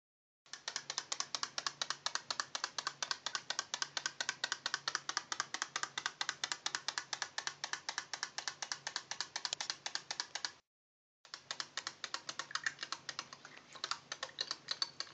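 A swimming toy frog in a shallow sink of water, its mechanism clicking rapidly and evenly at about seven clicks a second as it paddles. The clicking drops out for about half a second two-thirds of the way through, then comes back less evenly.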